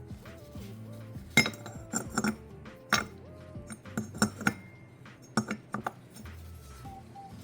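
Metal tools and pump parts clinking and tapping against each other in a dozen sharp, irregular knocks, some in quick pairs, while the pulley is fitted on a rebuilt power steering pump. The loudest knock comes about a second and a half in.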